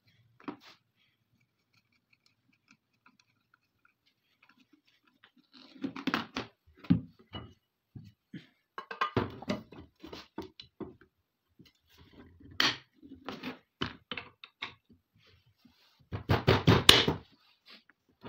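Short metallic clicks and knocks as a 12-bore side-by-side hammer shotgun is put back together, with the barrels fitted to the action and the wooden forend latched on. A run of sharp clacks starts about six seconds in, and the loudest cluster comes near the end.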